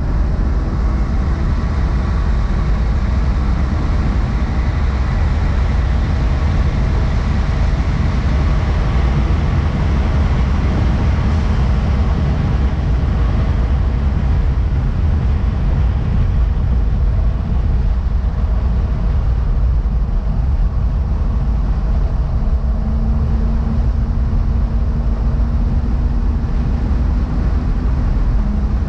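2011 BMW 135i's N55 turbocharged inline-six running at speed, heard from inside the cabin as a steady, loud drone mixed with heavy road and wind noise. A steady low hum joins near the end.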